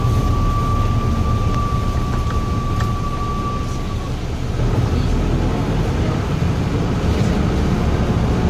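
Cabin noise inside a Toyota Coaster BB43 Euro II diesel minibus under way: the engine's steady low running with road rumble. A thin, steady high-pitched tone sounds along with it and stops about four seconds in.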